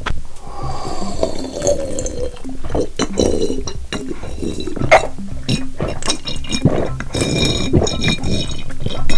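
Wet mukbang eating sounds: repeated sharp mouth clicks, slurping and juicy chewing, over background music.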